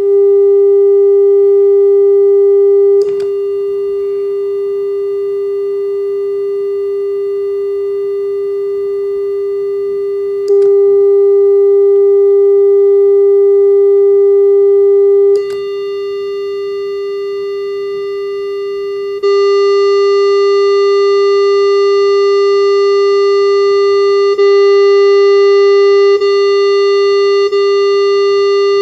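Steady electronic test tone from a tone generator played through a multi-effects pedal, one unchanging pitch whose tone colour and loudness switch abruptly every few seconds as effects are switched in and out, with a short click at each switch.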